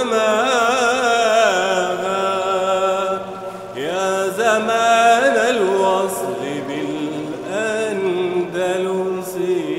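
Soundtrack music: a solo voice singing long, ornamented chant-like phrases over a steady low drone.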